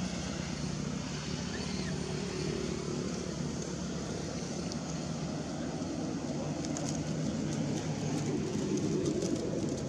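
Steady low rumble with a hiss above it, unbroken throughout.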